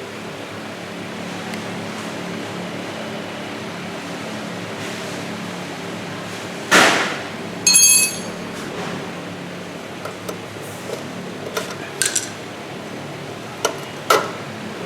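Metal tools and parts clinking while the front brake cable is undone at a Vespa's front hub: a loud knock about seven seconds in, a ringing metallic clink just after, then a few light clicks near the end, over a steady low hum.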